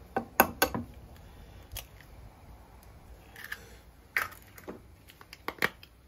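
An egg knocked sharply twice against the rim of a ceramic bowl and cracked open. A few lighter clicks and knocks follow in the second half.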